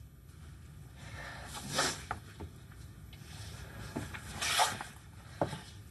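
A woman sniffling and breathing shakily while crying, with two louder sniffs, about two seconds in and again about four and a half seconds in.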